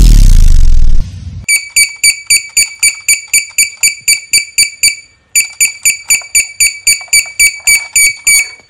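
A loud deep boom that dies away within the first second, then an electronic alarm buzzer beeping rapidly at one high pitch, about five beeps a second. The beeping pauses briefly a little past halfway and then resumes. This is the DIY Arduino alarm sounding, triggered by an object within the ultrasonic sensor's range.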